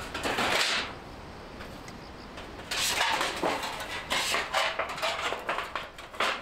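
A thin sheet-metal fire pan being handled and slotted onto the wire rods of a folding fire stand: a brief rattle at the start, then a run of irregular metallic clatters and scrapes as the plate rubs and knocks against the rods.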